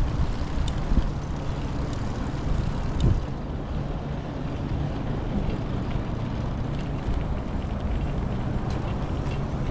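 Outdoor city ambience: a steady low rumble of road traffic from an elevated expressway, with a couple of brief knocks, about a second and three seconds in.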